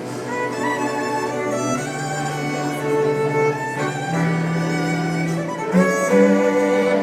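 Bowed string music: a violin playing a slow line of long held notes with a few slides between them, over lower sustained notes.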